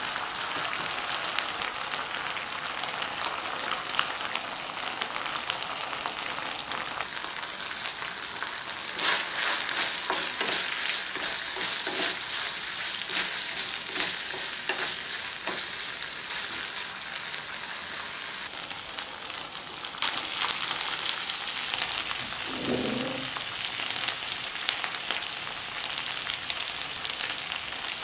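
Food sizzling in a wok on a high flame as sauce-coated onion and bell pepper strips are stir-fried with a wooden spatula. It runs as a steady hiss, with sharper crackling and spatula clicks from about nine seconds in.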